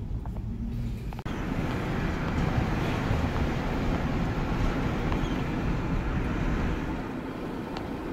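Steady road and wind noise inside a moving vehicle's cabin: tyres and engine rumbling. The sound drops out for a moment about a second in, then comes back louder and fuller.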